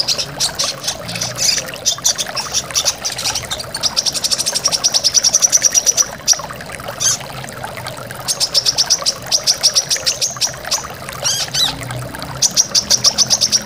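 Brown-throated sunbird (kolibri kelapa) singing rapid trills of high, evenly repeated notes, several bursts a second or two long, over a steady rush of flowing water.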